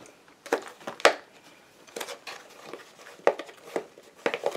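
Plastic takeout salad container being handled and opened: irregular sharp clicks and crinkles of the plastic lid and packaging.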